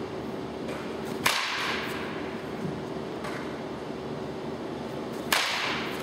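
Two sharp cracks of a baseball bat hitting balls in an indoor batting cage, about four seconds apart. Each crack is followed by a short echoing ring. A steady hum runs underneath.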